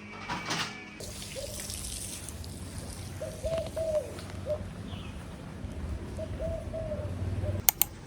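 Steady running water, with a bird cooing in short phrases several times and two sharp clicks near the end.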